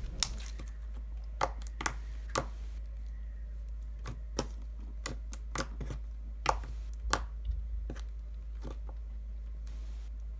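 Creamy glossy slime with foam beads being poked and pressed flat on a table, giving irregular sharp clicks.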